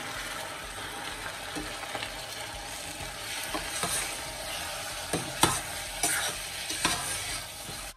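Raw chicken pieces sizzling in hot sesame oil with browned garlic and ginger in a stainless steel pot while a metal ladle stirs them. The ladle clinks against the pot several times, most sharply in the second half.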